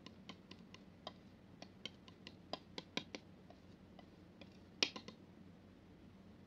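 Metal palette knife working thick wet paint on a flat surface: irregular light clicks and sticky taps as the blade presses into and lifts off the paint, the loudest about five seconds in.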